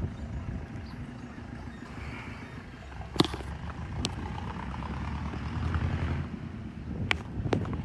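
Steady low rumble of outdoor background noise, with a few sharp clicks or knocks, the loudest about three seconds in.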